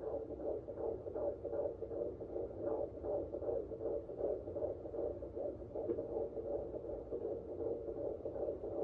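Fetal heartbeat picked up by a Premom SweetieSong pocket fetal Doppler and played through its small speaker: a fast, even pulsing beat of about two and a half beats a second, the baby's heart at around 145–155 beats a minute.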